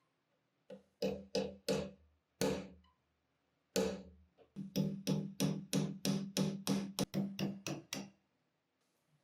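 Hammer tapping a steel pin punch to drive the pivot pins out of a pocket knife, each strike giving a short metallic ring. It goes as a few spaced taps, then a quicker run of about three taps a second, over a dozen in all, which stops near the end.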